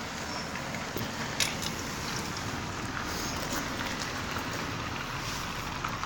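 Steady outdoor city-street background noise, a low rumble of wind on the microphone and distant traffic, with a few light clicks about a second in.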